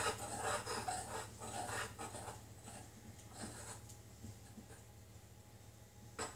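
Faint scraping and tapping of a utensil stirring a stiff paste in a small glass bowl, with a sharper click near the end, over a low steady hum.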